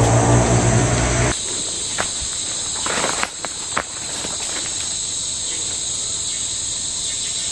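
A low, pitched hum cuts off abruptly just over a second in. After it, forest insects keep up a steady high-pitched chirring, with a few brief snaps and rustles of twigs and leaves in the undergrowth.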